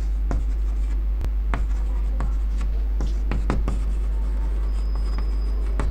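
Chalk writing on a chalkboard: a run of short taps and scratches as letters are written, over a steady low hum.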